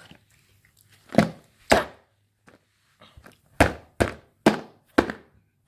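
Giant hollow chocolate egg being banged to crack it open: seven sharp thuds, two close together and then five more about half a second apart.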